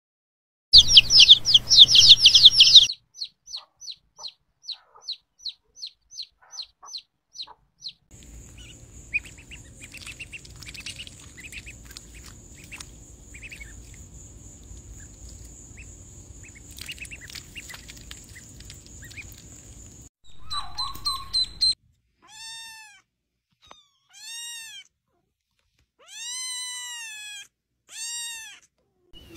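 Domestic chicken chicks peeping, first a loud rapid burst, then a steady run of single peeps about three a second. Next come ducklings' softer scattered peeps over a steady high whine. Near the end a young kitten meows several times.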